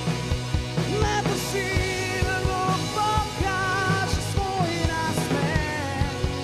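A rock band playing live, with drum kit, bass guitar, electric guitar and keyboard under a steady drum beat, and a man singing lead.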